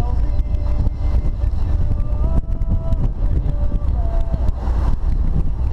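BMW 320 convertible driving with the top down: wind buffeting the open cabin and microphone over a steady low rumble of engine and road noise.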